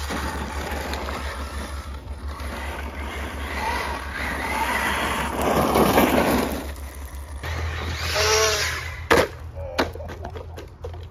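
Radio-controlled car running hard over gravel, its tyres crunching and throwing grit, loudest as it passes close about six seconds in. Around eight seconds the motor gives short rising whines. About nine seconds in there is a sharp knock, followed by smaller clatters, as the car tumbles; wind rumbles on the microphone throughout.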